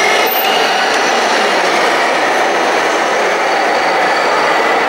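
Steady mechanical running and rumbling noise of radio-controlled model vehicles driving, without a clear rise or fall.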